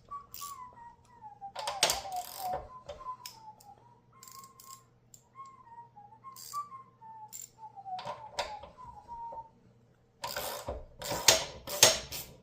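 Someone whistling a wandering tune, with a few scattered clicks of a socket ratchet. About ten seconds in, the ratchet clicks rapidly as bolts are turned loose with a 10mm socket.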